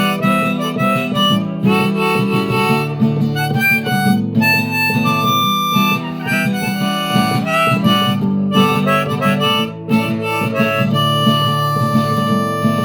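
Harmonica playing an instrumental solo over strummed acoustic guitar. The melody moves through short notes, with long held notes about halfway through and near the end.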